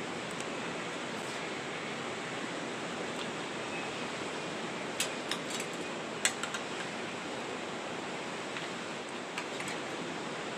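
Steady rushing noise, with a few short sharp clicks about five to six and a half seconds in.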